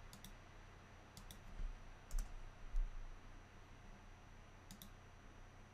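Computer mouse clicking: four quick double ticks a second or so apart, as curves are picked in CAM software. Soft low thumps fall between the clicks, over a faint steady hum.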